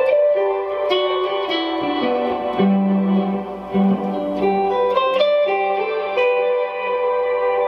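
Clean electric guitar with a wide-range humbucker neck pickup, on a vintage Yamaha semi-hollow body, played through a Source Audio Collider delay and reverb pedal. Single picked notes come about once a second, and each rings on under the next in a long, layered ambient wash.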